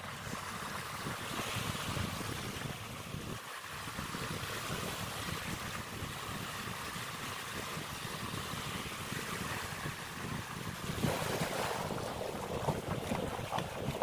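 Small waves breaking and washing over shallow, muddy water, with wind buffeting the microphone. The wash grows louder and more crackling about eleven seconds in.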